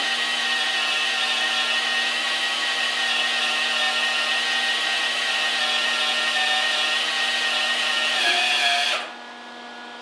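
MIG welder's wire-feed motor running flat out at maximum feed speed, a steady whine and hiss as it pushes wire through a 15-foot torch lead. It cuts off about nine seconds in, as the wire reaches the end of the gun.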